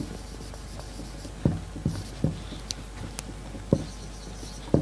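Dry-erase marker writing on a whiteboard: faint squeaky strokes broken by about five dull knocks as the pen strikes the board.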